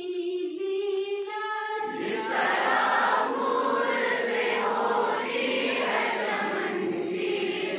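A single voice holds a sung note, then about two seconds in a large group of students joins in, singing together in unison as an assembly choir.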